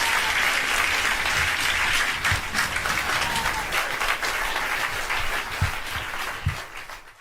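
Audience applauding after a live song, a dense steady clapping that dies away near the end.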